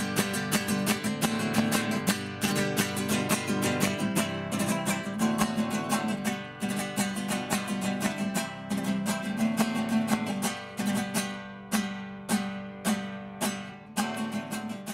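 Six-string classical guitar being strummed in a fast, steady rhythm, with the strokes thinning to more widely spaced strums in the last few seconds.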